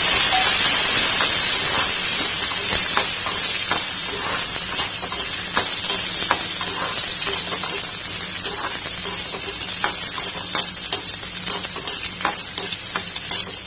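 Chopped small onions sizzling in hot sesame oil with pepper, cumin, ginger and garlic, a loud steady frying hiss with frequent sharp crackles and ticks. The sizzle is strongest at first and settles slightly as the onions fry.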